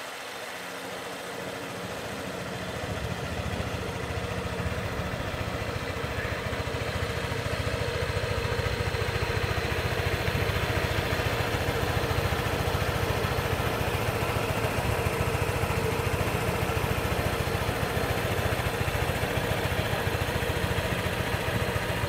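Honda PCX 125 scooter's single-cylinder four-stroke engine idling steadily. It grows louder over the first few seconds, then holds an even, unchanging idle.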